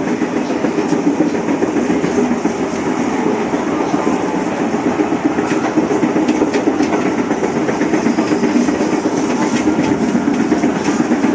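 Running noise of a 205 series electric commuter train heard from inside the passenger car at speed: a steady rumble of wheels and running gear on the rails, with scattered clicks from the track.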